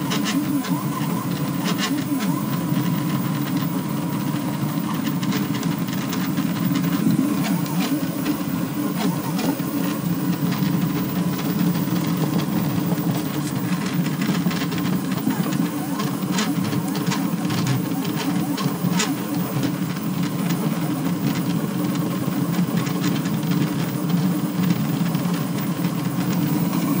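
High-speed delta 3D printer printing: its stepper motors whir and buzz in a steady, dense run as the print head darts across the bed, with scattered faint ticks.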